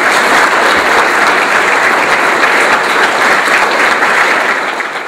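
Audience applauding, a dense steady clapping that begins to fade near the end.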